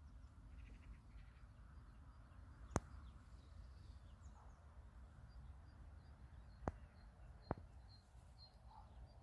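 Near silence with faint small birds chirping and a low background rumble. Three sharp clicks stand out: one about three seconds in and two close together near the end.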